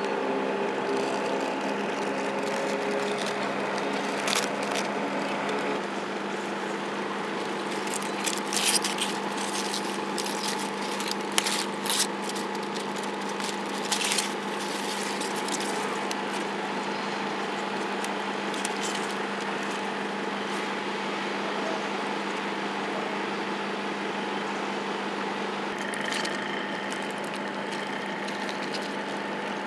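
A steady machine hum with two fixed tones over a constant hiss, broken by a handful of short clicks and rustles about a third of the way through.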